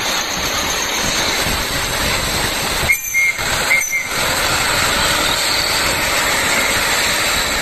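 Street traffic noise: a steady roar of a Hino tank truck and other vehicles driving by, broken by two short gaps about three and four seconds in.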